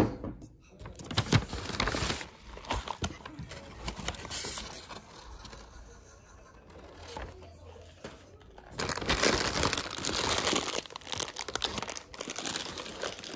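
Irregular crinkling and rustling, loudest for a few seconds near the end.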